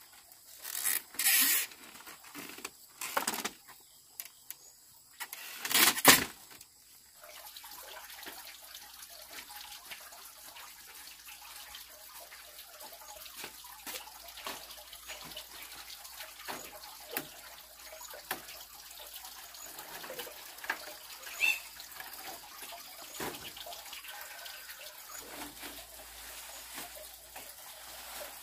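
Water splashing and running, with three loud splashes in the first six seconds, then a steady trickle with small knocks and clinks.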